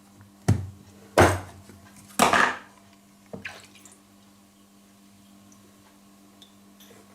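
Four short clinks and knocks of kitchenware, plates and utensils set down and handled on a counter, all in the first three and a half seconds. A low steady hum runs underneath.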